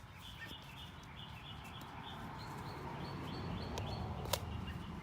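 Small birds chirping over a noisy background that slowly grows louder, with one sharp click about four seconds in.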